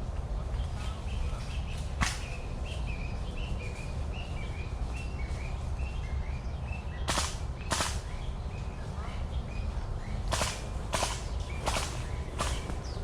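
Swishes of leaves and branches brushing past as someone moves through forest undergrowth, about six of them in the second half, with one sharp click about two seconds in. A bird chirps in a string of short notes through the first half.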